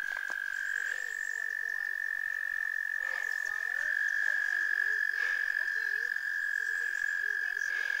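Frogs calling from a pond: one long, unbroken trill held steady on a single high pitch, which the walker takes for cicadas.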